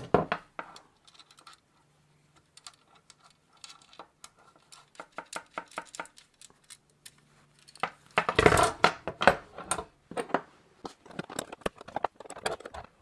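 Small steel parts clicking and clinking against each other: a washer and lock nut being fitted onto a bolt on a Brooks saddle's steel frame, then a spanner set on the nut. The clicks come scattered, with a louder, busier spell of rattling about eight seconds in.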